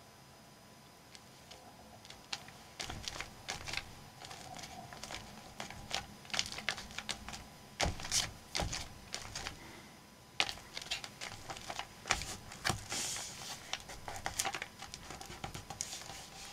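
Hands rubbing and pressing a glued paper cutout flat on a journal page: irregular light taps, rustling and scraping of paper under the fingers, starting a couple of seconds in.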